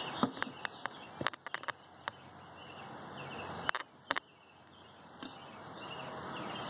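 A scatter of about ten short, sharp clicks and knocks at irregular intervals, the loudest just after the start and at about four seconds, over a faint steady outdoor background.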